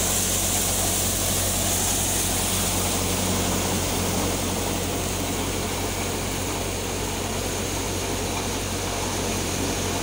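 Devta hopper-model thresher running steadily: a continuous mechanical drone with a low hum and a rushing noise.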